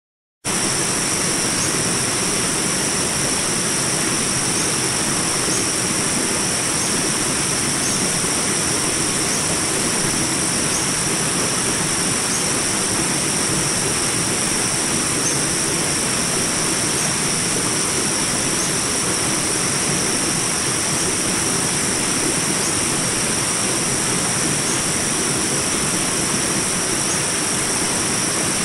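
Small jungle rapids: water rushing steadily over rocks. Above it runs a steady high-pitched drone of jungle insects.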